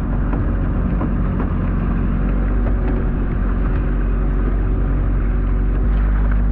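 Small fishing boat's engine running steadily, a constant low rumble with a steady hum.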